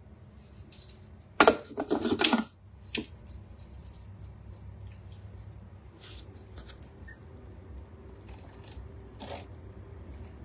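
The plastic lid of a Vorwerk Thermomix is set on its steel bowl and locked with a clatter about a second and a half in. Lighter clicks follow as the selector dial is turned, over a faint steady hum.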